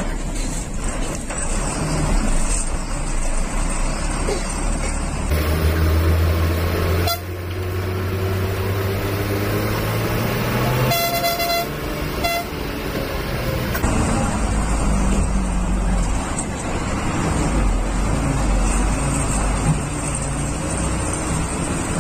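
Bus engine running and road noise heard from inside the bus as it climbs a hill road. A horn sounds twice in quick succession a little past halfway through.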